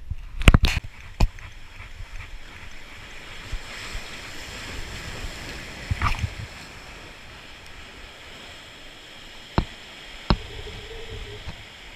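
Sea surf washing against the rocks of a breakwater, with a few sharp knocks in the first second or so and two more sharp clicks near the end.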